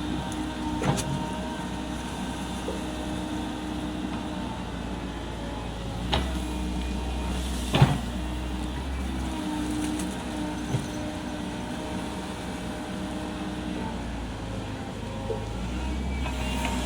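Komatsu PC135 hydraulic excavator running steadily with a constant low diesel hum and a held hydraulic whine, broken by short sharp knocks about a second in, twice around six to eight seconds, and again near eleven seconds, as the bucket and machine work.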